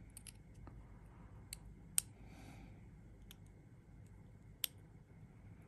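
Faint, scattered clicks of a small screwdriver tip touching the metal build deck and screw posts of a Hellvape Fat Rabbit RTA while a coil is set in place, three of them sharper than the rest.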